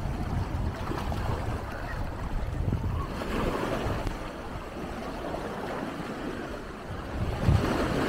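Wind buffeting the microphone in irregular low gusts over the steady wash of small waves on a lake shore, the wash swelling about three seconds in and again near the end.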